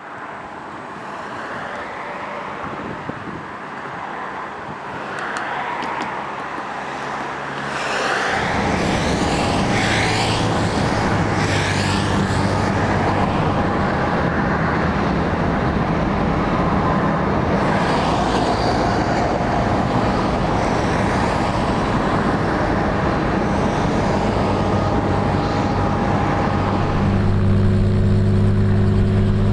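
Airport ramp noise: engines running steadily with a held whine, getting louder about eight seconds in, with a deeper hum coming up near the end.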